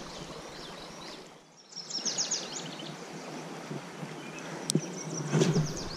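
Birds chirping in short rapid bursts over a steady outdoor background by a stream, with a brief dropout about one and a half seconds in and a soft knock a little after five seconds.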